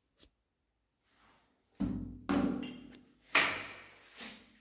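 Four loud knocks in the second half, each with a short ringing tail.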